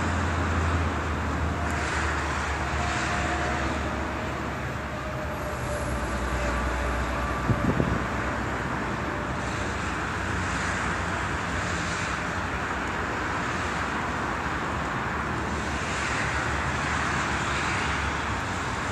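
Outdoor ambience: a steady rumble of road traffic, with a brief cluster of clicks about seven and a half seconds in.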